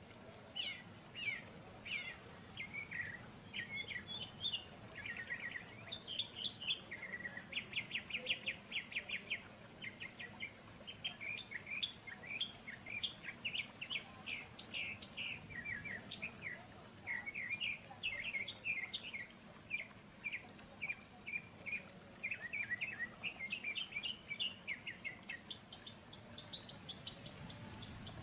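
Small songbirds singing: a busy run of quick chirps and trills, with one rapid series of repeated notes partway through and a higher trill near the end, over a faint low steady background noise.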